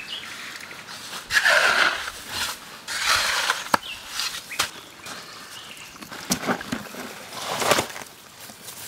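A shovel digging and scraping into gravelly soil in several short strokes, with a few sharp knocks of stone on stone, as an irrigation channel is cleared and reshaped.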